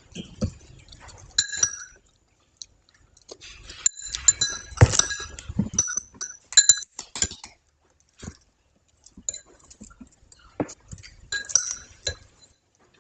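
Clinking and tapping on a dish, several of the clinks ringing briefly, in scattered clusters with quiet gaps between; the busiest stretch is in the middle.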